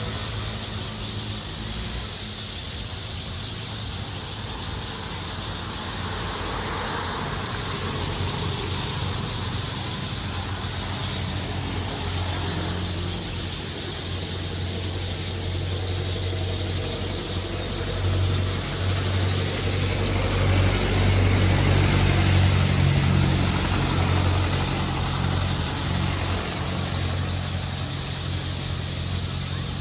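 Motor vehicle engines running with road noise, a steady low hum that swells for several seconds past the middle as a vehicle passes close.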